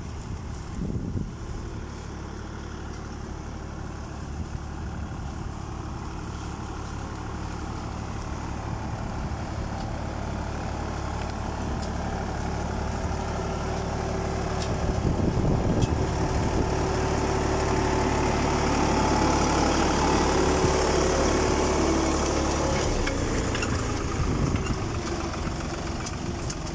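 Farm tractor's diesel engine running steadily while it pulls a furrowing implement through an orchard. It grows louder as it draws close around the middle and drops back a little near the end.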